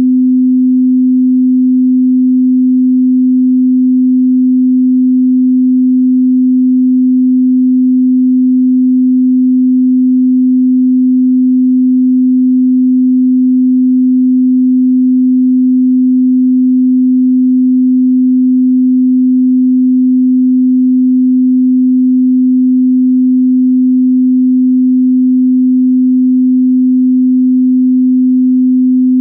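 Pure 255 Hz sine tone held steady and loud, a single low hum with no other sound: an electronic test tone for calibrating a sound system or instruments.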